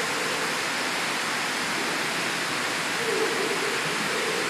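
Steady rushing noise of an indoor swimming pool, the water sloshing and splashing as people wade through it.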